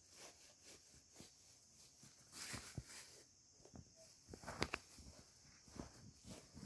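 Faint rustling and soft footsteps through grass, with scattered light clicks and a brief louder cluster of taps a little past the middle.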